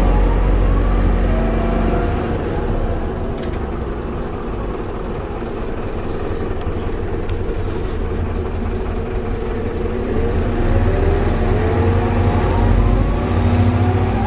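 Optare Solo bus's Allison automatic gearbox whining over a low diesel engine rumble, the whine gliding up in pitch near the start and again over the last few seconds. A brief hiss comes about halfway through.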